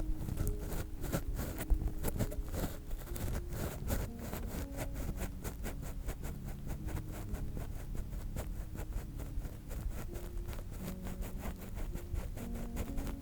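Ear-pick scratching and scraping close against a binaural microphone: rapid, dense scratchy strokes and small clicks. Soft background music sits underneath.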